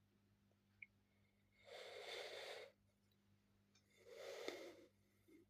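Two soft breaths from a person close to the microphone, each about a second long, over near silence, with a faint click about a second in.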